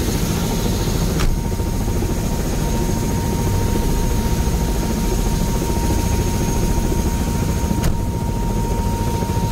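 Helicopter engine and rotor running on the ground before lift-off, heard from inside the cockpit: a loud, steady drone with a constant whine over it. Two faint clicks, about a second in and near the end.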